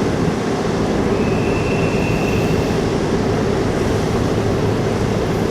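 Ferry's engines and machinery running with a steady low drone, as the ship comes into port. A faint high whine sounds briefly from about a second in.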